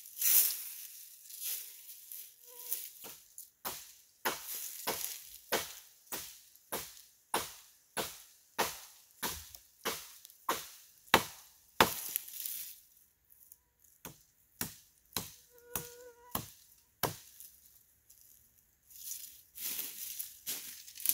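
Wood being chopped by hand: even, sharp strokes into a tree about two a second, pausing briefly near the end before more rough cutting noise.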